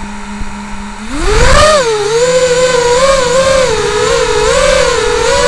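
Brushless motors and propellers of an FPV racing quadcopter (Emax RS2205 motors): a steady armed idle hum for about a second, then a sharp rising whine as the throttle comes up for takeoff, settling into a whine that wavers up and down with the throttle in low flight.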